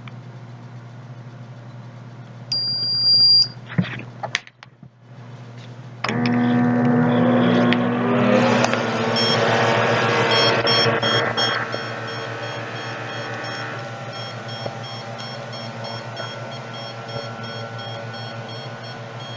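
Automatic blood pressure monitor: a single beep as it starts, then its small cuff pump motor running for about eight seconds as the cuff inflates, after which the sound drops to a quieter steady whir. Rapid high-pitched beeping runs alongside from about nine seconds in.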